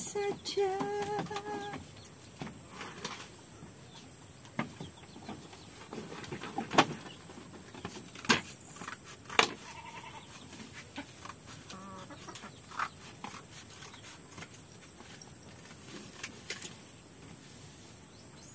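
A goat bleats, a wavering call in the first second or two. After it come scattered sharp knocks and clicks over a low background.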